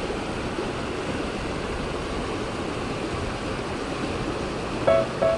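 Steady rush of river water. A beat of repeated musical notes comes in near the end.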